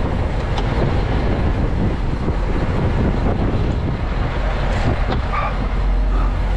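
Heavy semi-truck diesel engine running with a steady low rumble, with a few light clicks and knocks as the cab step and door are handled.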